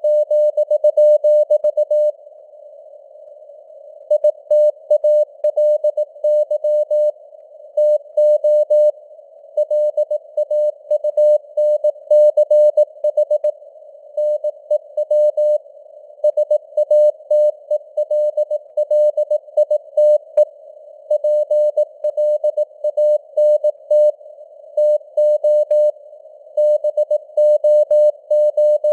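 Morse code (CW) sent at 18 words per minute as a single mid-pitched tone keyed on and off in dots and dashes, with longer gaps between words. Soft simulated radio hiss surrounds the tone.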